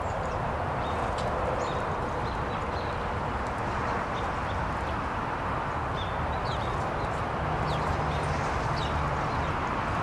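Small songbirds giving short, high chirps and chip notes, scattered irregularly over a steady background rumble and hiss.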